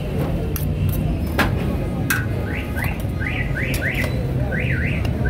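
A steel ladle clinks and scrapes against a steel serving plate several times over a low street din. From about halfway through comes a series of quick, rising, high chirps, several a second.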